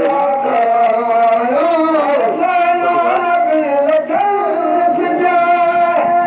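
Voices singing a Sindhi molood, a devotional song in praise of the Prophet, in long held notes that slide from pitch to pitch.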